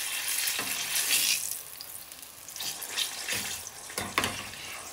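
Breaded sweet potato and goat cheese croquettes bubbling and sizzling in hot oil in a saucepan. The sizzle is loudest for the first second and a half, then quieter. About three seconds in come a few short sharp knocks as a metal slotted spatula goes into the pan.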